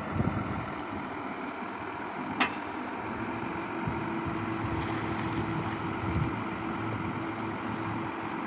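Dump truck's engine running steadily while its tipper bed is raised to unload coal, with a steady whine coming in about three seconds in. A single sharp click sounds about two and a half seconds in.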